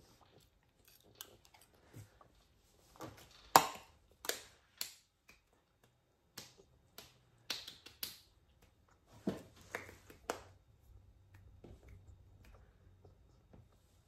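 Scattered short taps, clicks and scrapes at a meal table, such as a metal spoon working a plate of rice; the loudest sharp tap comes about three and a half seconds in.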